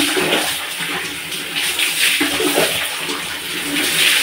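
Tap water running and splashing as hands wash talcum powder out of hair.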